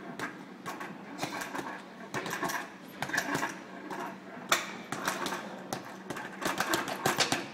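Boxing gloves striking a padded wall target in quick, irregular flurries of punches. One hard single punch comes about halfway through, and a fast burst of blows near the end.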